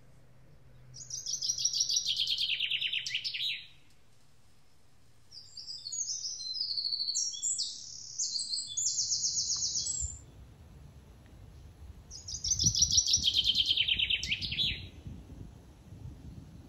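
Songbirds singing: two similar trilled phrases, each about two and a half seconds long and falling in pitch, about a second in and again near the end, with a higher, varied run of chirps between them.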